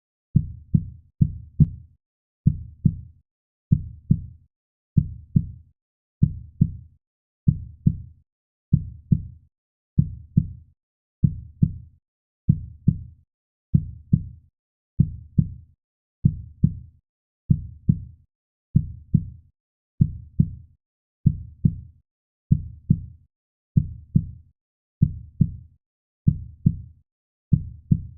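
Heartbeat sound: paired lub-dub thumps repeating steadily, about one beat every 1.3 seconds.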